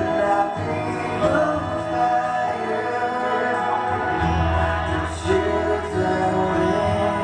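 Gospel worship song playing: singing over an instrumental backing with held bass notes.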